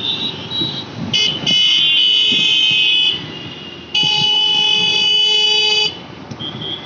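A vehicle horn sounding two long, steady blasts of about two seconds each, the first about a second in and the second about four seconds in, over road traffic noise.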